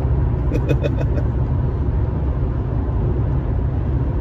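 Car cabin noise at highway speed: a steady low engine and road drone.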